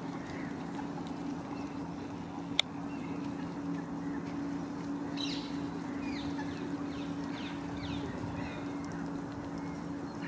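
Park waterfowl and other birds calling: a run of about six short, falling calls from about halfway through, over a steady low hum. A single sharp click comes about two and a half seconds in.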